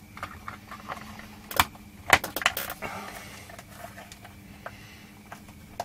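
Clicks and knocks of a plastic power-supply case lid being pressed down onto its clips. The sharpest click comes about one and a half seconds in, then a quick cluster of them around two seconds in. The lid is not seating, because a clip inside is sitting wrong.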